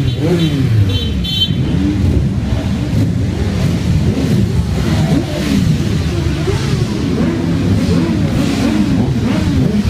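A procession of motorcycles riding past one after another, their engines overlapping and each engine note rising then falling in pitch as it goes by. A short horn toot sounds about a second in.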